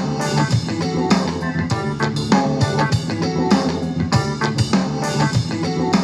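Song with drums, guitar and a steady beat played through a JBL Go 3 portable Bluetooth speaker for a sound test.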